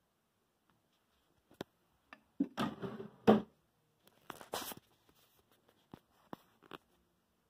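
Scattered clicks and knocks with two short scraping rubs, the louder one near the middle. This is a particleboard desk drawer being slid open and the phone being handled close to its microphone.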